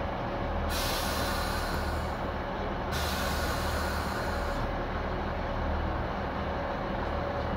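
Compressed air hissing twice from the couplers and brake pipes of two Class 156 Sprinter diesel units as they are coupled, each hiss lasting about a second and a half, the first under a second in and the second about three seconds in. The diesel engines idle steadily underneath.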